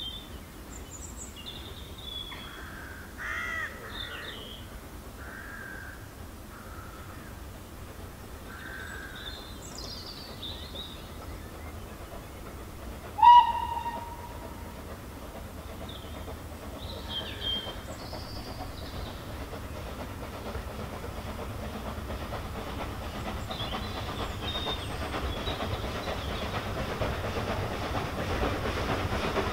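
Steam locomotive whistle, one short blast about 13 seconds in, followed by the steam train's running sound growing steadily louder as it approaches. Small birds chirp through the first half.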